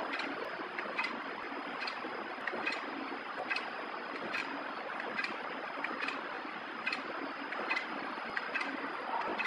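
Automatic pillow packaging machine (VT-110xh rotary flow-wrapper) running, with a steady mechanical noise and a sharp tick a little more often than once a second as it cycles.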